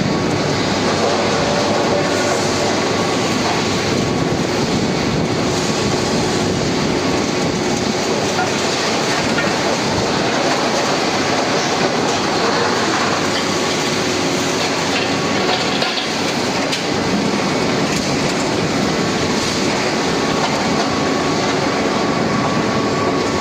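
A machine running steadily and loudly: a dense, even mechanical noise with faint steady tones in it and no breaks.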